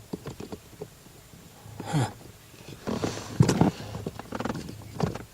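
Small plastic clicks and knocks of a relay being worked into its socket by hand, with a few short grunts.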